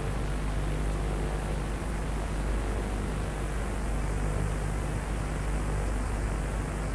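Steady hiss with a constant low mains hum from an old VHS tape transfer, playing over a blank stretch of the tape with no programme sound.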